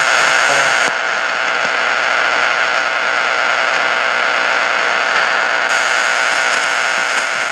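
Shortwave radio receiver tuned to the 4625 kHz UVB-76 frequency, playing steady static hiss through its speaker, dipping slightly about a second in.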